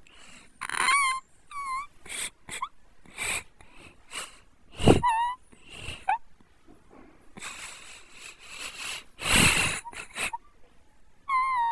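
A young child crying in short broken bursts: breathy gasping sobs and brief wavering wails, with pauses between them.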